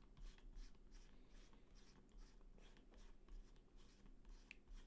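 Faint, repeated scratchy rubbing, about three short strokes a second, as fingertips twist a small replacement camera lens into its threaded mount.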